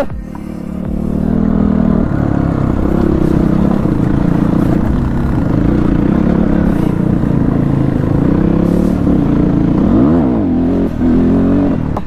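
Dirt bike engine running steadily while riding up a rocky trail, its pitch wavering with the throttle, with one rev rising and falling about ten seconds in.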